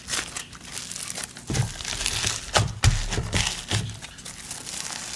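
Hands kneading and squishing slime ingredients into a crust dough, making a dense run of small crinkly clicks and crackles, with a few soft low thuds midway. The mix is turning into a thick, sizzly snow butter slime.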